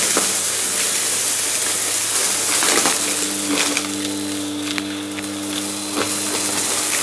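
Bissell vacuum cleaner running, its motor humming steadily while sequins, glitter and carpet powder crackle and click as they are sucked up off a rug.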